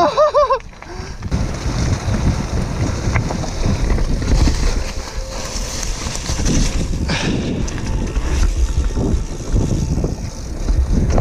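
Wind buffeting a helmet-mounted action camera's microphone and the rumble and chatter of a downhill mountain bike's tyres running over a gravel and dirt trail at speed, rising and falling in loudness with the ground. A brief shouted call right at the start.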